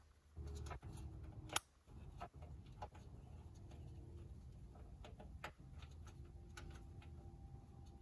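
Faint, irregular clicks and taps of hand tools and metal parts being handled during work on a tractor, the sharpest about one and a half seconds in, over a low rumble that eases after the first second and a half.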